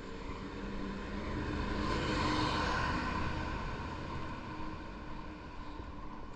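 Coach bus driving past: its engine hum and tyre noise swell to a peak about two and a half seconds in, then fade away.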